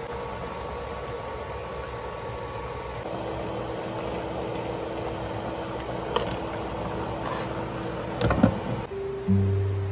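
A pot of soup simmering on an electric hot plate: a steady bubbling hiss over a low hum, with a few knocks from the ladle against the pot a little after eight seconds in.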